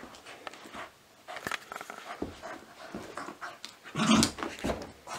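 Spoodle (cocker spaniel–poodle cross) playing frantically on a rug, snuffling and panting in short irregular bursts, the loudest about four seconds in.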